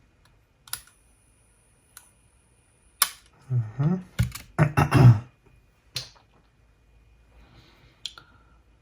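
Sharp mechanical clicks from a Sony WM-DD33 cassette Walkman's buttons and mechanism being operated by hand, with a faint high whine for about two seconds after the first click. About halfway through comes a louder cluster of knocks and rubbing from handling.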